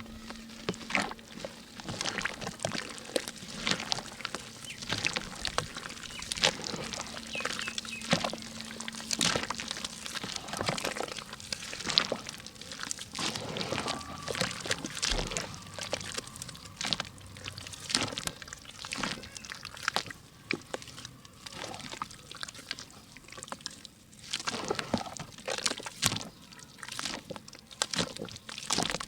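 Pink ASMR mud crumbling and being mixed into water: dense, irregular wet crackles, plops and sloshes.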